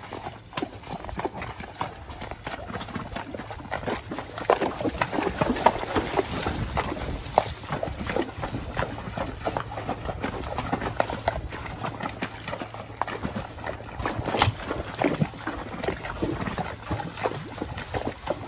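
Horses walking through a shallow creek, hooves splashing and clopping in an uneven run of steps, with one sharp loud knock about fourteen seconds in.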